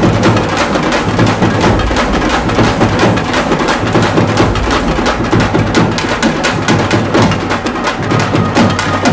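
Background music with a fast, steady percussion beat.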